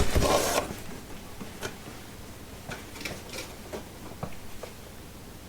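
Handling noise as unboxed tool parts are picked up and set down: a brief loud rustle at the start, then scattered light clicks and taps.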